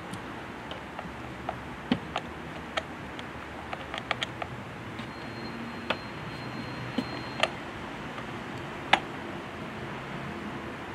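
Scattered light metallic clicks and ticks from handling a chainsaw's bar and chain while setting the chain tension, at irregular intervals; the sharpest come about two seconds in and about nine seconds in.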